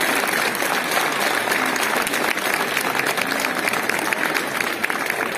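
Crowd applauding, many hands clapping at once at the end of a dance.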